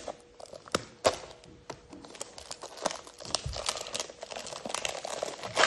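Plastic tyre wrapping crinkling and rustling as a hand works inside it, with many sharp crackles.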